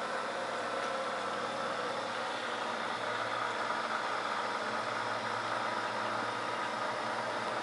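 Steady hum and hiss of aquarium aeration: an air pump running and air stones bubbling in the tank, with no change in level.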